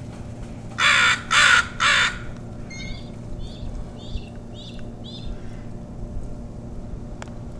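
A crow cawing three times in quick succession, loud and harsh, about a second in. A run of fainter, shorter, higher calls from another bird follows.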